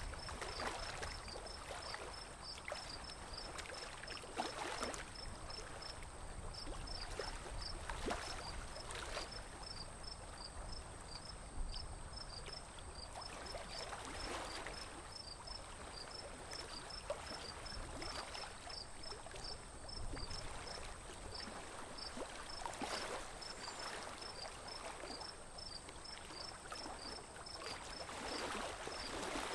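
Water swishing and lapping around a small wooden boat as it moves across a lake, swelling in surges every few seconds. A high, rapid insect chirping runs on underneath, with a low wind rumble on the microphone.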